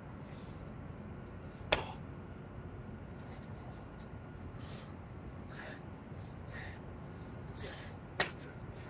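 A person doing burpees on concrete: hard, hissing breaths about once a second, and two sharp slaps on the ground, the louder about a second and a half in and the other near the end.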